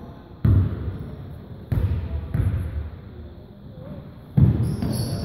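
A basketball bouncing on the court: four dull thuds at uneven intervals.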